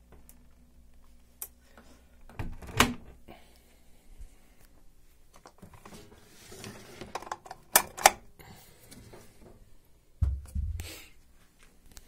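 Scattered knocks and clicks of household things being handled: a knock a little under three seconds in, two sharp clicks close together about eight seconds in, and a dull low thud a little after ten seconds.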